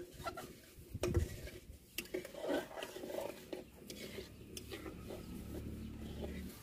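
Long metal spatula stirring a thick curry in a steel kadai, scraping the pan and knocking against its side in scattered clinks.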